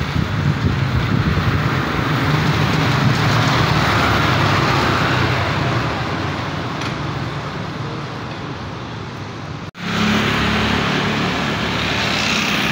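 Street traffic with motor scooters passing, growing louder as one goes by about four seconds in. The sound cuts out for an instant just under ten seconds in, then carries on.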